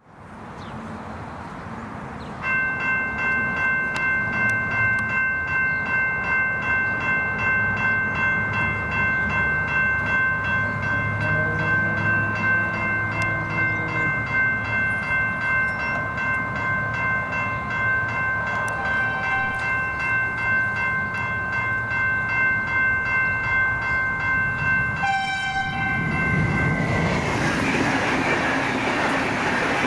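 Railway level-crossing bell starts about two seconds in and rings with a steady pulsing ding, about twice a second, while the boom gates are down. Near the end a V/Line VLocity diesel railcar sounds its horn briefly and passes over the crossing with loud rail and wheel noise.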